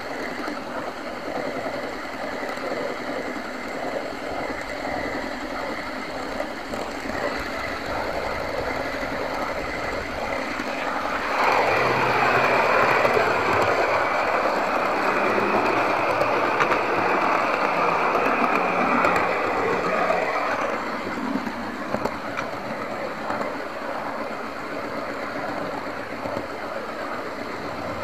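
OO gauge model train running along its track, heard from on board: steady wheel-on-rail and motor noise. It grows louder for about nine seconds in the middle, then settles back.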